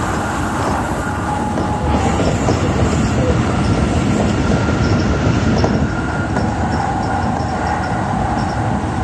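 Tsukuba Express electric train running at speed, heard from inside the front cab: steady rolling and wheel noise on the rails with a faint steady whine. The tail of an oncoming train's passing noise is at the very start, and light regular clicking comes in during the second half.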